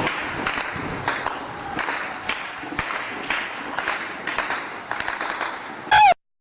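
A run of sharp cracks or pops, about two a second. Near the end comes a brief loud whistle-like tone that bends in pitch, and then the sound cuts off abruptly.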